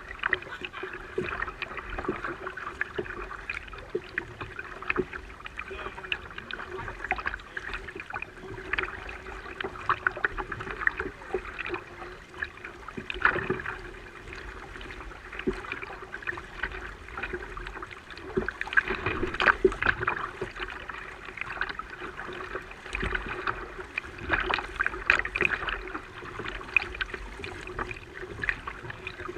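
Water splashing and lapping against a fishing kayak's hull as it moves, in irregular bursts, over a faint steady hum.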